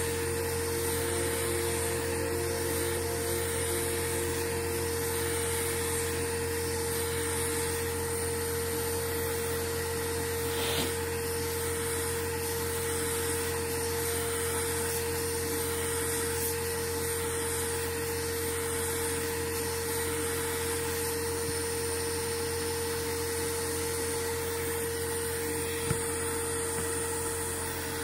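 Steady machine hum with one held tone, unchanging throughout, and a faint click or two.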